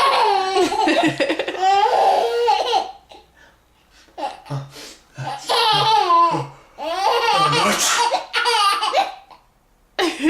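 A baby laughing in several bouts of high-pitched giggles and squeals, with brief pauses between them. Short deeper adult voice sounds come in between the bouts.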